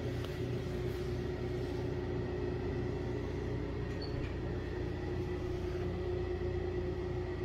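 A steady low rumble with a constant hum running through it, unchanging throughout.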